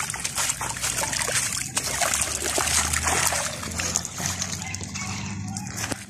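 Shallow seawater splashing and trickling as a plastic basket of freshly dug clams is swished in the shallows at the water's edge, with many small clicks. A low steady hum comes in about two seconds in.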